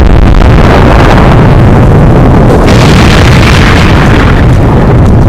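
Explosion sound effects, a dense and constant rumble of blasts pushed to near full loudness and heavily distorted.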